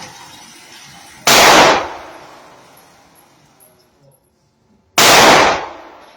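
Two gunshots from a 7.5-inch Del-Ton DTI-15 AR-15 pistol in 5.56, about three and a half seconds apart, each with a short echoing tail.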